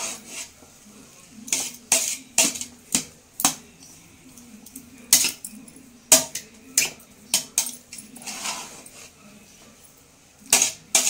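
A ladle scraping and knocking against a large metal pot as fried rice is tossed and mixed. It comes as irregular sharp clinks, one or two a second, with a softer rustle of stirred rice a little after the middle and a quick pair of clinks near the end.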